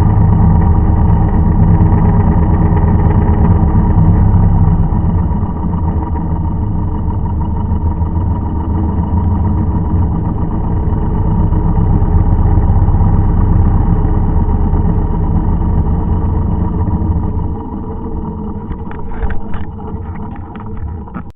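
A farm machine's engine running steadily with an even, low pitch. It gets quieter for the last few seconds, and a few clicks come near the end.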